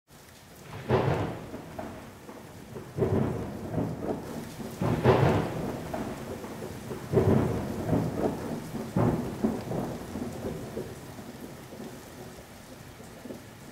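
Deep rumbles swelling about every two seconds over a steady rain-like hiss, dying away near the end.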